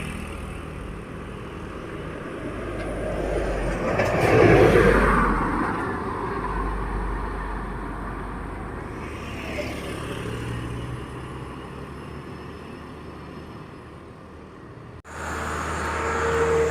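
Road traffic: a vehicle passes close by, its noise swelling to a peak about four to five seconds in and then fading away. About fifteen seconds in the sound cuts abruptly to a steady diesel engine running.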